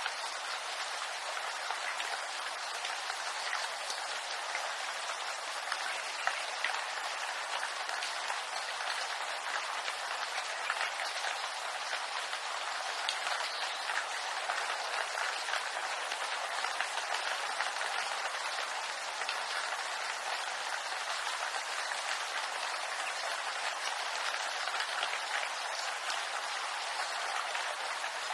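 Steady rain falling on bamboo leaves: a dense, even hiss of countless small drop ticks that never lets up.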